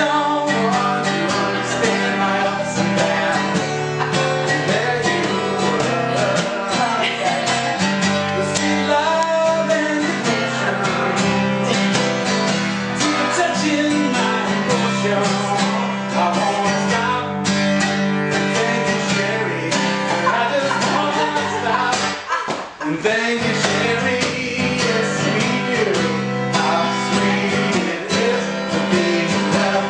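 Acoustic guitar strummed with a voice singing along: a live song performance.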